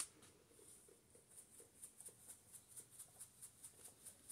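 A single click, then the faint, even rattle of dried oregano being shaken out of a plastic spice shaker jar, about four shakes a second.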